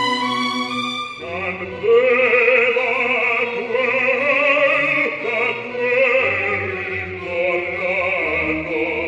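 Operatic bass singing an oratorio solo with wide vibrato, from an old analogue recording; a new sung phrase begins about a second in.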